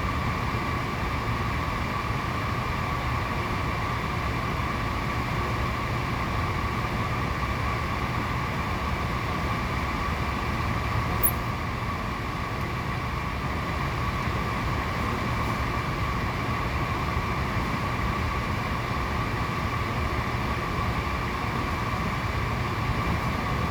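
Convection blower fan of a 6000CLX-IFT-S heater running steadily, a constant whine over a low rumble. There is one brief tick about eleven seconds in, but no sustained heat-shield rattle.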